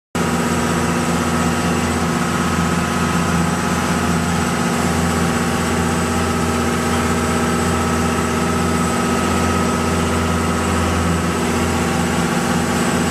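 Shrimp boat's engine running steadily, heard on deck: a constant low drone with a thin, even whine above it.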